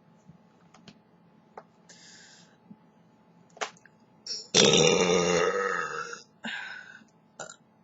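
A man belching: one long, loud belch about halfway through, then a shorter one just after.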